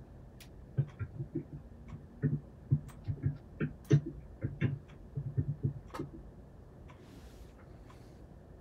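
Irregular soft clicks and taps, several a second for about five seconds, then a short hiss near the end.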